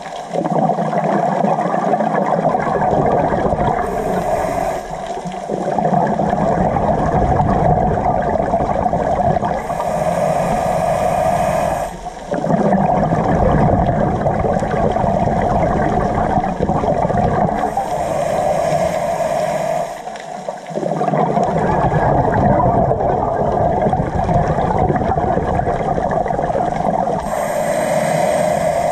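Scuba diver breathing underwater through a regulator: exhaled bubbles gurgling, alternating with hissing inhalations, one breath cycle about every eight seconds.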